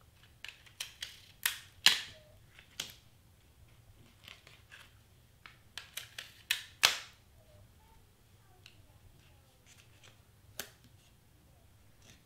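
Clear tape being pulled from a desktop tape dispenser and torn off, with the clicks and clacks of handling the dispenser: two clusters of short sharp sounds, the first a second or two in and the second around six to seven seconds in, then a single click near eleven seconds.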